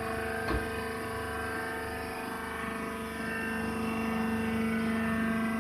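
Hydraulic wood shavings baler running: a steady machine hum with a constant whine, getting a little louder about halfway, and a single knock about half a second in.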